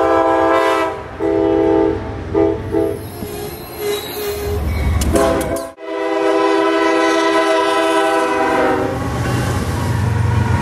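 Diesel locomotive horns blowing several blasts: two long ones, then shorter ones. After a cut, another locomotive sounds one long blast, and the low rumble of the locomotive passing close by follows near the end.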